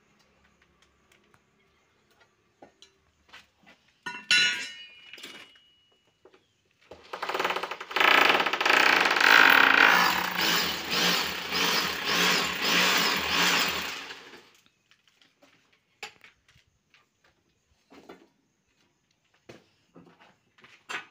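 Corded electric drill boring a hole into a plastered wall for the mounting-plate anchor, running for about seven seconds from about seven seconds in, its level pulsing as it bites. A short sharp sound with a brief ringing tone comes about four seconds in.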